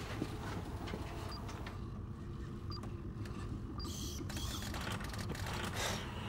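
Steady low hum of a spaceship-interior sound effect. Over it come a few faint, short high computer beeps and a brief whir about four seconds in, as a computer calls up schematics.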